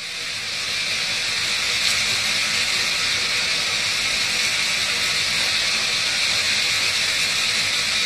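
Steady rain falling on shallow puddles of rainwater over salt: an even hiss that swells over the first second or so and then holds.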